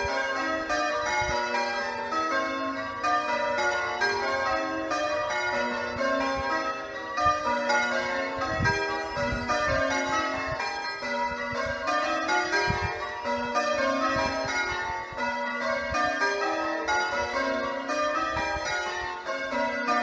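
A ring of eight church bells, the back six cast by Warner in 1913 and two trebles added in 2002, being rung in changes, heard from outside the tower: an unbroken run of bell strikes stepping up and down through the notes of the ring.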